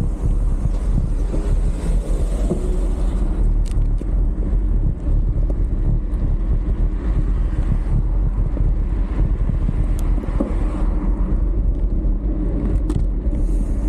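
Wind buffeting the camera microphone over the rumble of mountain-bike tyres rolling on a dirt and gravel shoulder, with a few sharp ticks.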